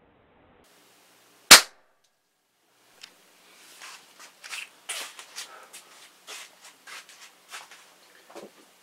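A single sharp crack of a .177 PCP air rifle shot about a second and a half in, followed by a run of lighter, irregular clicks and ticks.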